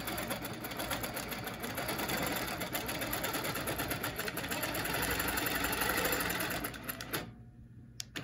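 Longarm quilting machine stitching at a fast, even rate as the foot is run along an acrylic ruler template, stopping about seven seconds in; a single click follows near the end.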